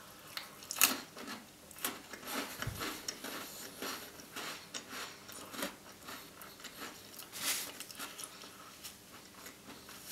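Close-miked wet chewing and lip smacks of a person eating a custard-dipped Tim Tam biscuit: a run of small irregular clicks, with a sharper smack about a second in and another about seven and a half seconds in.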